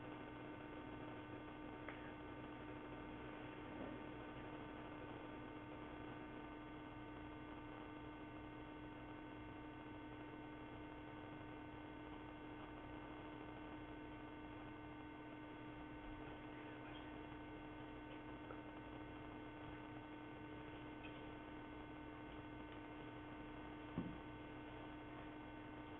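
Faint steady electrical hum and hiss on the audio line, with a single soft click near the end.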